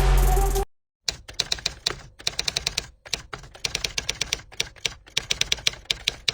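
Music cuts off under a second in; after a brief silence comes a rapid, irregular run of sharp clicks, like typing, that stops just before the end.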